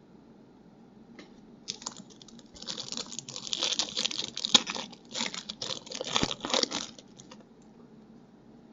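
Foil trading-card pack being torn open and its wrapper crinkled, with cards rustling. It starts about two seconds in, goes on for about five seconds with a short break in the middle, and stops.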